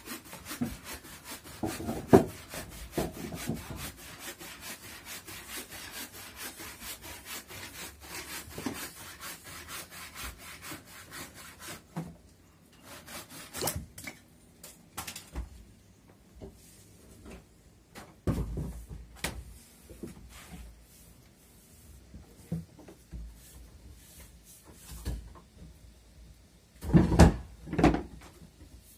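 Saw cutting through wood with quick, regular strokes for about the first twelve seconds, then stopping. After that there are scattered knocks and handling noises, with a loud bump near the end.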